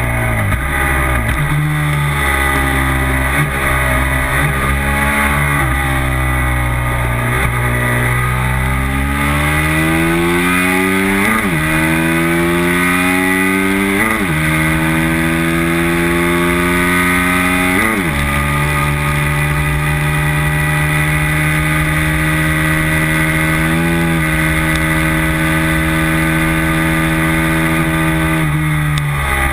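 Racing motorcycle engine heard from the bike's own tail. It first blips and drops in revs as the rider slows, then accelerates hard through three upshifts about three seconds apart, each shift a sharp break in the rising engine note. It then holds high revs down the straight with wind rushing past, and the revs drop and break up again near the end as it slows.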